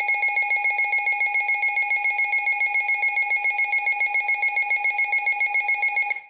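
Emergency Alert System alert tone: a two-pitch electronic alarm pulsing rapidly and evenly, about seven times a second. It cuts off sharply near the end and marks the start of a new alert message.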